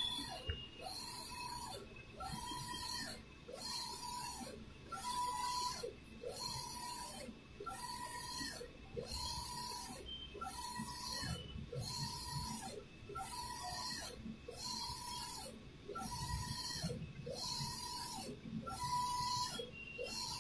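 Allwin eco-solvent wide-format inkjet printer printing, its print-head carriage sweeping back and forth across the media about once a second. Each pass is a motor whine over a hiss. The whine drops in pitch as the carriage slows and rises as it speeds up again, with a brief break at each reversal.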